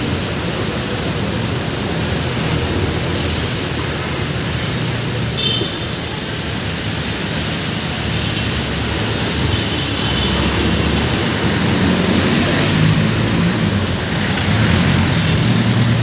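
Steady low rumble of running engines mixed with street noise.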